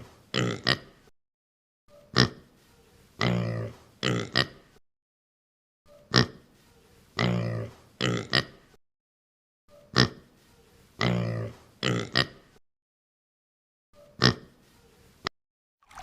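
Pig grunting and oinking in short pitched bursts. The same clip repeats about every four seconds, with dead silence between repeats.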